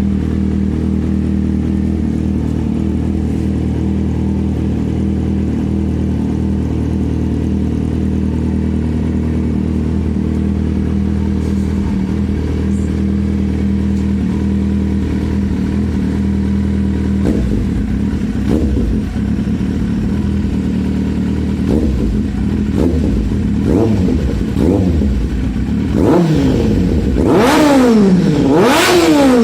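Kawasaki Z750's inline-four engine breathing through an aftermarket sport exhaust tip, idling steadily and loud, then blipped with short revs that rise and fall from a bit past halfway. The revs grow higher and louder near the end.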